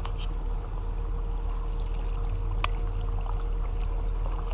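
Steady low engine hum as the boat comes in to the trailer, with faint water sounds at the ramp and two sharp clicks, one near the start and one about two and a half seconds in.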